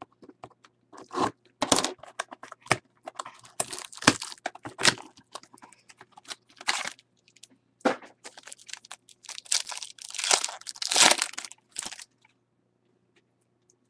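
A baseball card pack being torn open and the cards slid out: irregular crackling, tearing and rustling that stops about two seconds before the end.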